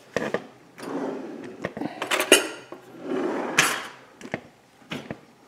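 A small stainless-steel saucepan handled on a wooden cutting board: several sharp knocks and clinks, with two longer stretches of scraping and handling noise, about a second in and again about three seconds in.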